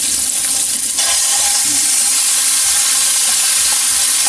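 Strips of guanciale sizzling in hot oil in a pan. About a second in, crushed peeled tomatoes are poured in on top, and the sizzle grows fuller and continues loudly.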